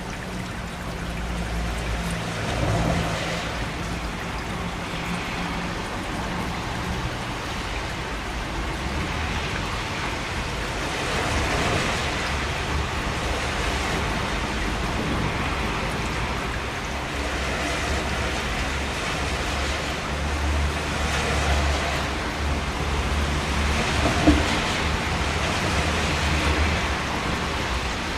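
Steady rain: a dense, even hiss of falling water, with a low rumble that swells in and out, strongest near the start and over the last third. A single sharp tap stands out about 24 seconds in.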